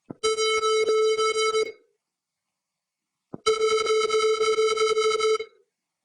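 Synthesized square-wave buzz, a steady mid-pitched tone broken up by irregular clicks, played back twice, the first time for about a second and a half and the second for about two seconds. It is a work-in-progress attempt at a crackling-paper sound effect built from a square wave.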